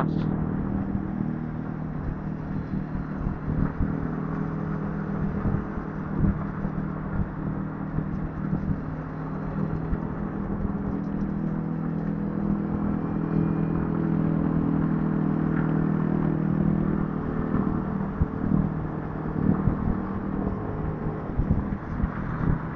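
Vespa scooter engine running at a steady pitch, heard through a mic inside the rider's helmet, with wind buffeting the mic.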